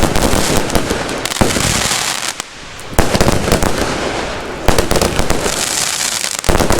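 Fireworks going off: three sharp bangs, each followed by dense crackling.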